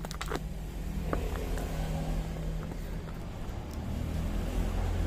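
A steady, low mechanical hum, like an engine running, with a few light clicks just after the start.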